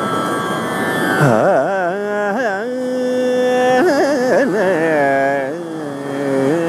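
Male Carnatic vocalist begins a wordless ālāpana in rāga Bhairavi about a second in, sliding through wide oscillating gamakas and holding one long steady note midway. Underneath run a plucked tambura drone and the constant roar of ocean surf.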